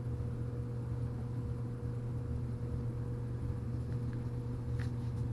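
Steady low hum with a faint thin tone above it, like a running fan or motor, and a couple of faint clicks near the end.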